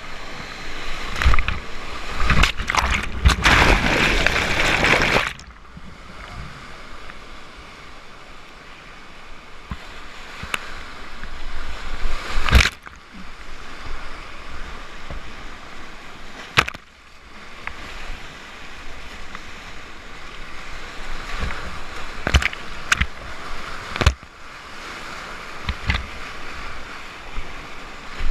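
Whitewater rapids rushing and splashing around a kayak, loudest in a heavy surge of splashing over the first few seconds. Later come a few short sharp splashes, such as paddle strokes biting the water.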